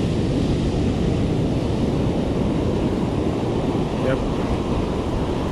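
Ocean surf breaking and washing up the sand, a steady rush, with wind on the microphone.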